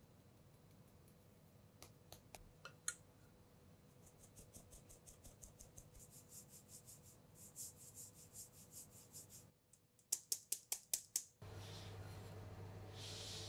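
Flour and baking powder being sifted through a fine metal mesh sieve into a glass bowl: soft, even shaking strokes about three a second, then a quick run of sharper taps on the sieve. Near the end a rubber spatula scrapes through the floury batter.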